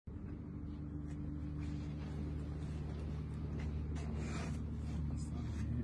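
A steady low hum runs under light rustling of paper and bedding, with the rustle strongest about four seconds in.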